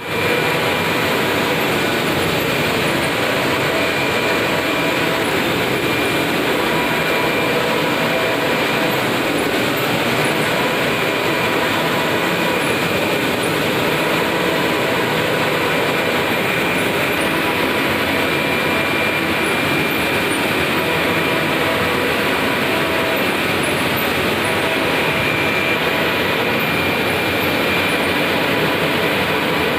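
UV flatbed printer running: a steady mechanical whir of the machine as it prints, with a faint high whine that swells and fades now and then.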